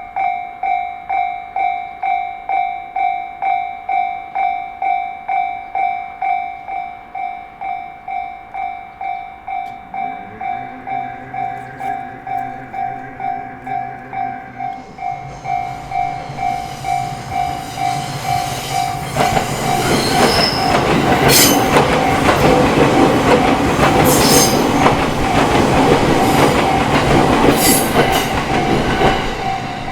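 Japanese railway level-crossing warning bell ringing steadily, about two strokes a second. From about ten seconds in, a steady hum from the approaching train is heard. From about fifteen seconds a train passes over the crossing: wheels rumble and clatter over the rail joints with sharp clicks and squeals, loudest in the last third, while the bell keeps ringing.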